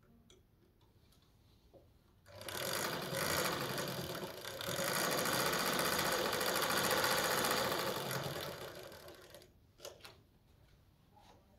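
A small motor-driven machine running for about seven seconds, starting abruptly about two seconds in and dying away near the end, with faint clicks around it.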